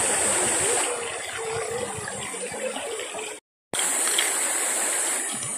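Shallow stream running over rocks, a steady rush of water that breaks off briefly about three and a half seconds in.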